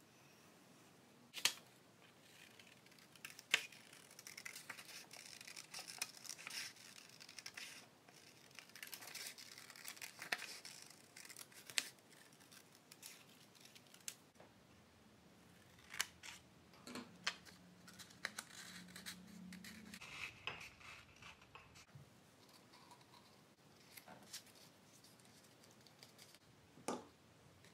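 Scissors cutting through thin red card in a long run of snips, with a few sharp clicks in between.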